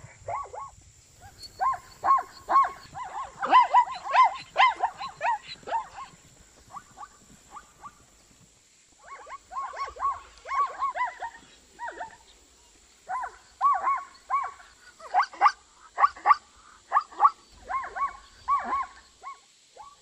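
Zebras barking: bouts of short, rapid yelping calls, several a second, with pauses between bouts and a longer quiet gap about eight seconds in.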